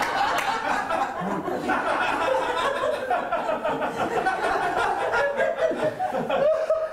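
Comedy club audience laughing, a dense, steady wash of many people chuckling and laughing together at a punchline.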